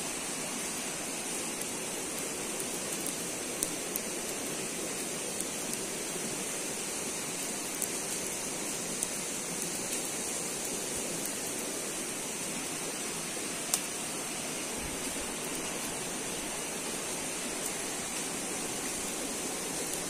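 Steady rush of flowing water, with a few sharp crackles from a burning wood campfire.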